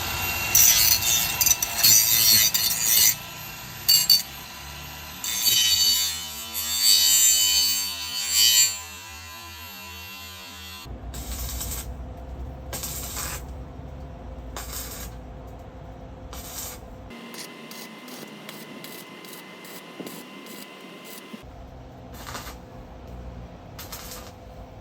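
Power tool working on steel in bursts of a second to three seconds each through the first half, then a quieter stretch marked by a series of short, sharp clicks.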